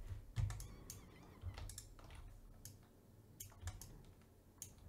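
Faint computer keyboard keystrokes and mouse clicks: a handful of separate, scattered taps.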